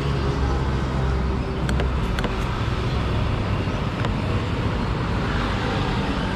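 Steady road traffic noise from a busy street, a continuous rumble of passing vehicles. A few light clicks sound about two seconds in and again about four seconds in.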